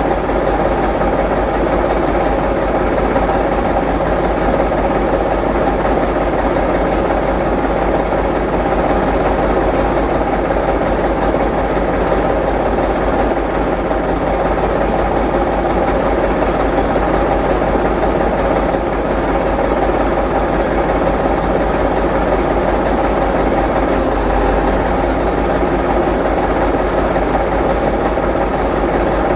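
A heavy vehicle engine idling steadily, with an even hum and a few held tones that do not change.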